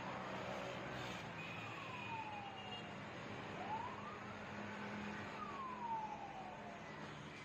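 A faint siren wailing: its pitch falls slowly, then rises and falls again, over a steady background hiss.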